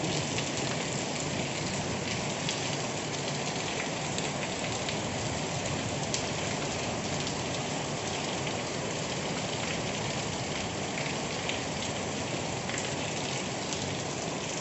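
Heavy rain falling steadily, an even hiss of rain on surfaces with scattered sharper drop ticks.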